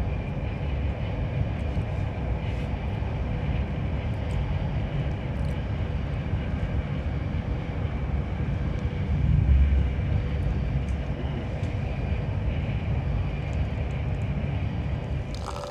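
Steady low rumble of a moving vehicle heard from inside, with a faint steady whine over it and a heavier bump about nine and a half seconds in.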